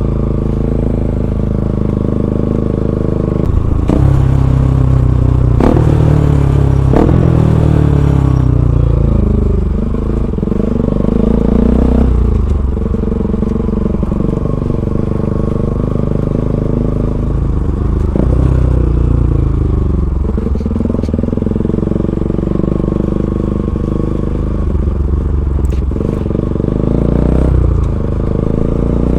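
Bajaj Pulsar NS200's single-cylinder engine through an Akrapovic full-system aftermarket exhaust, loud and raw, its pitch climbing and dropping back again and again as the motorcycle accelerates through the gears.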